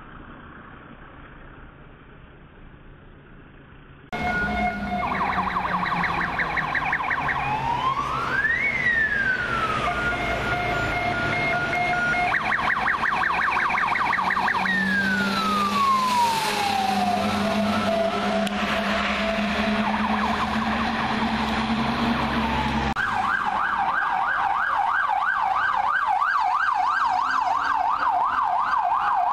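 Electronic sirens of fire engines on an alarm run. Under traffic noise for the first four seconds, then loud, switching between a fast warble, a slow wail that rises and falls, and steady tones, over engine rumble. Near the end they settle into a continuous fast up-and-down yelp.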